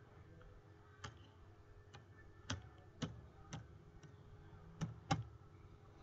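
About seven sharp, irregularly spaced clicks from working a computer during a slide change, over a faint steady hum.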